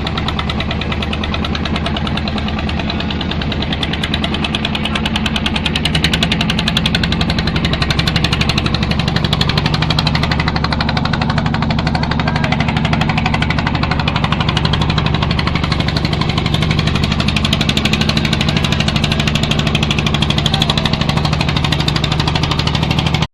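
Boat engine running steadily under way, a loud rapid chugging with a steady low hum that rises slightly in level about six seconds in, then cuts off abruptly.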